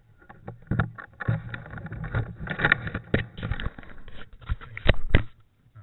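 Irregular rustling and scraping broken by several sharp knocks, the loudest two close together near the end.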